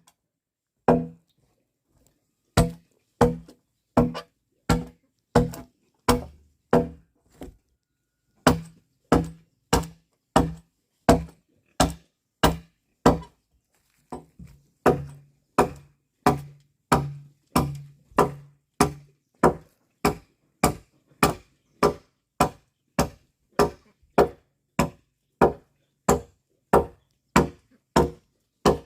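Steady chopping with a blade into wood, sharp strokes about every two-thirds of a second with two brief pauses.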